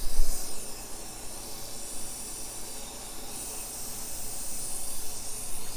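Compressed air hissing steadily through a leak-down tester into cylinder 3 of a Mitsubishi 4G63T turbo engine, growing brighter about three seconds in. The hiss is the air escaping the cylinder: cylinder 3 is leaking pretty good, which the owner puts down to a piston ring issue.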